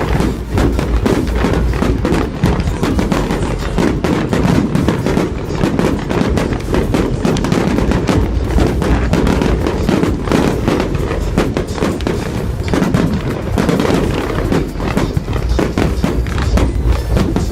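Fireworks going off in rapid succession, a dense run of bangs and crackles, with music playing alongside.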